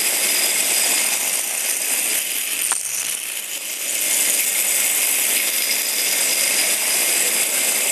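Several Hexbug Bobble Bots, small vibration-driven toy robots, buzzing and rattling as they bounce across a hard floor: a dense, steady clatter that dips briefly a little under halfway through.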